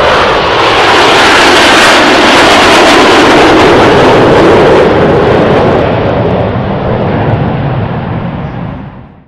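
Loud jet roar of a Blue Angels formation of F/A-18 Hornets flying past, steady for several seconds, then easing and fading out near the end.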